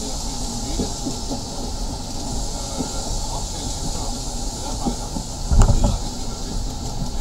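1934 electric tram Nesa 929 running along the track: a steady rumble of wheels on the rails with a high hiss over it, and one louder thump about five and a half seconds in.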